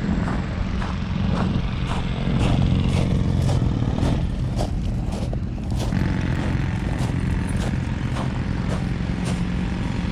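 Heavy diesel engine running steadily, with light clattering clicks and knocks over it.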